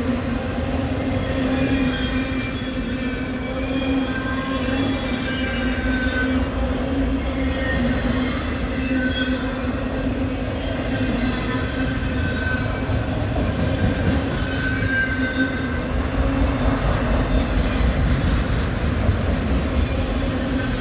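Train rolling past with a steady low hum and rumble, its wheels giving short high squeals over and over.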